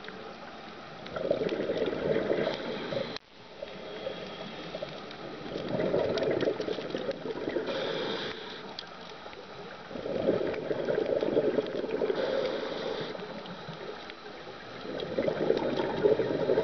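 A scuba diver breathing underwater through a regulator, heard from the camera: exhaled bubbles gurgle in bursts about every four to five seconds, with the regulator's hiss between breaths.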